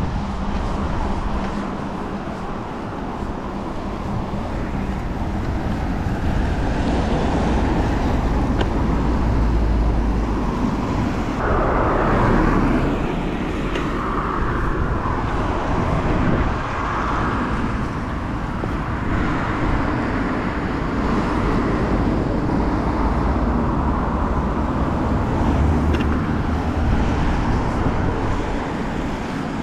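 Steady rushing road noise of a mountain bike being ridden: tyre roar and air rushing past a chest-mounted camera, swelling and easing.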